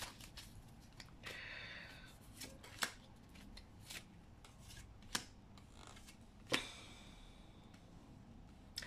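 Tarot cards being handled and laid down by hand: faint scattered snaps and taps of card on card, with a brief sliding rub of cards a little over a second in.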